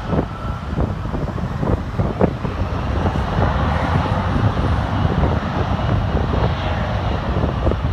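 Steady jet roar of an Airbus A321 airliner on final approach and landing, mixed with road traffic and wind on the microphone.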